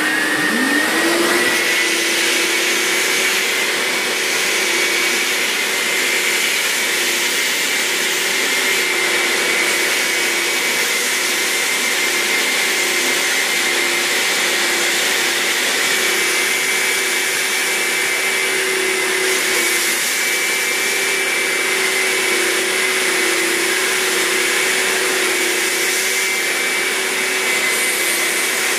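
Wet-extraction vacuum running, its motor reaching full speed in the first second and then holding a steady whine over a rushing hiss, as the upholstery nozzle is drawn over wet, foamed sofa fabric. The pitch wavers slightly now and then as the nozzle seals and lifts on the cushion.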